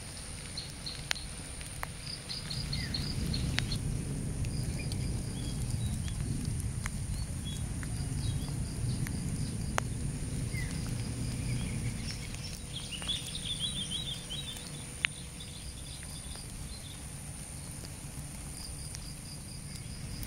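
Outdoor ambience after rain: a steady thin high insect drone, groups of short high chirps every few seconds, and a low rumble that is stronger through the middle and eases off later, with a few scattered sharp ticks.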